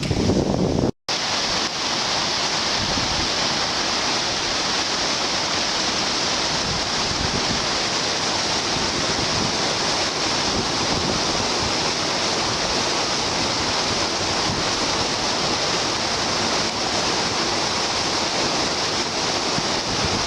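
Steady rush of flowing creek water, an even hiss that holds without gusts; a brief cut to silence about a second in.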